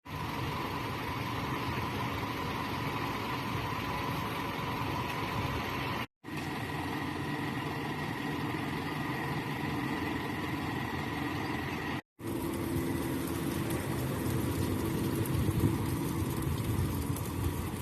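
A motor vehicle's engine idling steadily, in three stretches of about six seconds each, cut apart twice by sudden brief dropouts.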